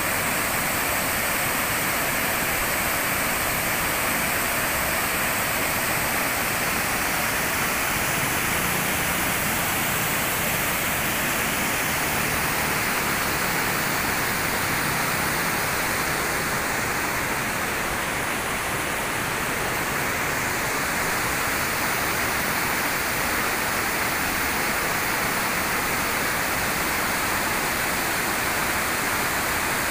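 Waterfall: falling water crashing in a steady, loud rush.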